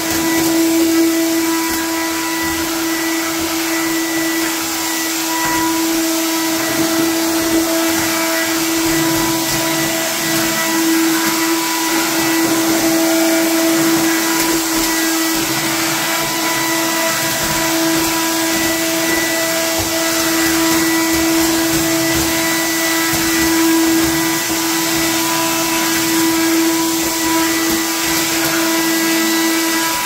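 Singer stick vacuum cleaner running steadily: an even motor whine that holds one pitch over a strong hiss of rushing air.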